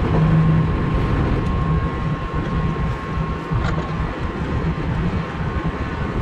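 Tractor-driven feed mixer wagon running as its augers turn and mix a load of feed, a steady mechanical drone with a thin constant whine above it.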